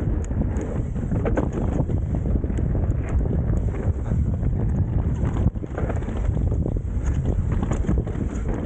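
A mountain bike descending a dirt race trail at speed, with wind rushing over the microphone, tyre noise and many short knocks as the bike rattles over rough ground.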